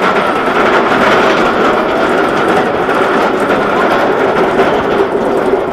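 Steel roller coaster train of a Bolliger & Mabillard wing coaster rolling along its track: a loud, steady rumble of wheels on rail with a faint steady hum through it.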